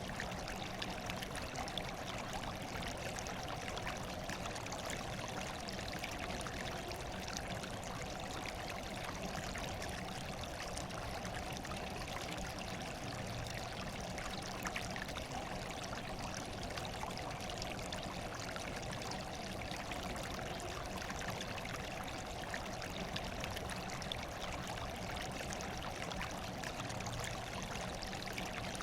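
Running water trickling and splashing steadily: an even rush with fine splashes and no change in level.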